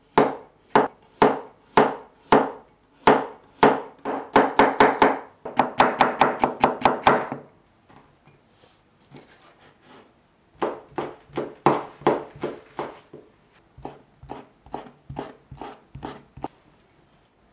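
Chinese cleaver chopping on a wooden cutting board. Crisp, evenly spaced strikes about two a second speed up into rapid chopping through cucumber. After a short lull of a few seconds, a further run of strikes slices cooked pig ear into strips.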